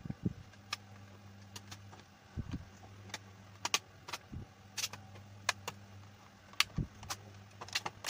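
Plastic clicks and knocks from a white Tenda F3 router as it is handled and its hinged antennas are swung into place: scattered sharp clicks with a few dull knocks on the bench. A steady low electrical hum runs underneath.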